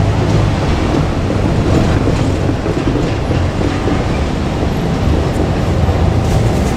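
Two-car KiHa 47 diesel railcar set running past, a loud steady rumble with a few wheel clicks over the rail joints.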